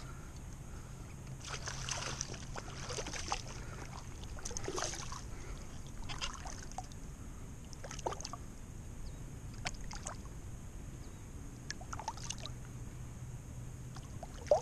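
Water splashing and sloshing as a hooked striped bass is handled at the surface, in irregular splashes every second or two. A single sharp knock near the end is the loudest sound.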